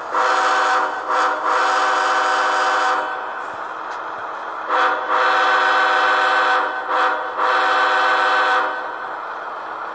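Sound-equipped model Union Pacific ES44 diesel locomotive playing its air horn: several long, steady blasts with short breaks, dropping quieter in between.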